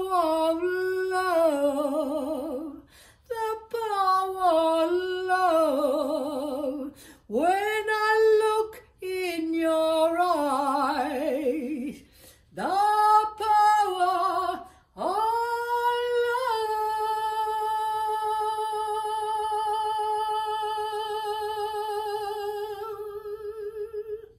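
A woman singing alone in a small room, in several short phrases. The last phrase settles into a long held note with vibrato, which stops abruptly near the end.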